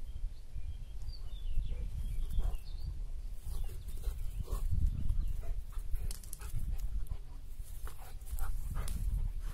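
Rottweiler at play with a rope toy, making dog sounds over a steady low rumble, with scattered short scuffs and clicks.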